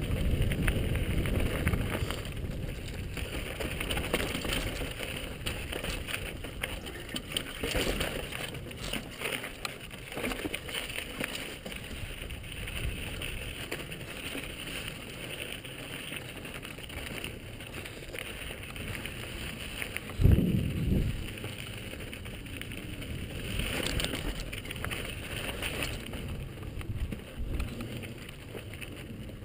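Downhill mountain bike rolling over a rocky dirt trail: steady tyre and frame noise with wind on the helmet-camera microphone, and a brief louder low rumble about twenty seconds in.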